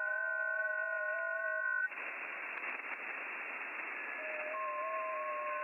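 Receiver audio from an HF transceiver on the 40 m FT8 frequency (7.074 MHz). Several FT8 digital signals are heard at once as steady tones that step slightly in pitch over band hiss. The tones stop about two seconds in, leaving only hiss; a couple of new tones start near the end, and then all the audio cuts off abruptly.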